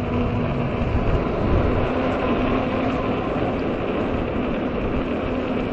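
Ecotric 48 V fat-tire e-bike under way in strong gusty wind: a steady rush of wind noise and tyre roar, with a steady motor hum that drops out briefly about a second and a half in.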